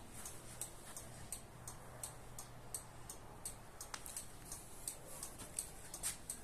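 Steady clicking of a Daewoo Tico's hazard-light flasher relay, about three clicks a second.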